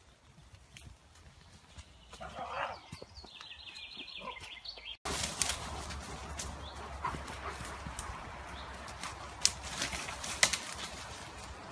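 Dogs and a walker pushing through leafy woodland undergrowth: rustling of leaves and stems with sharp snaps and crackles. It is faint at first with a brief high pitched call about two seconds in, then becomes suddenly louder about five seconds in.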